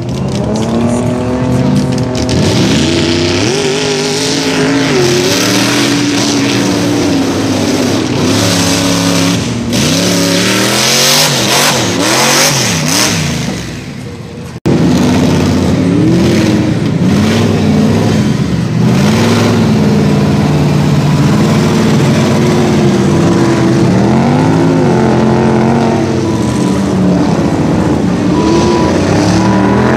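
Mud bog vehicle's engine revving hard, its pitch climbing and falling again and again. The sound drops out briefly about halfway, then picks up with more loud revving.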